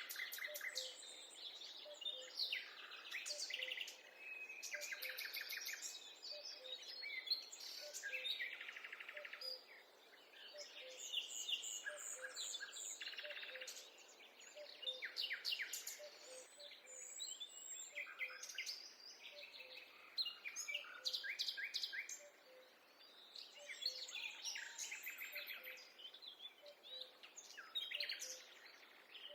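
Several songbirds singing in overlapping trills and chirping phrases, one after another with short pauses, and a faint low note repeating about once a second beneath them.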